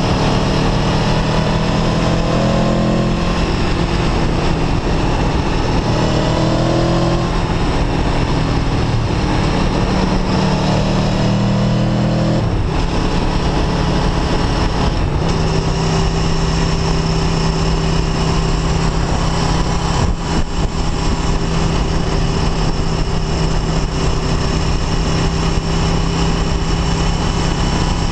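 Aprilia Tuono V4 1100 RR's V4 engine heard from the saddle, pulling with revs rising three times in the first twelve seconds. It then settles to steady revs while cruising, with constant wind and road rush over it.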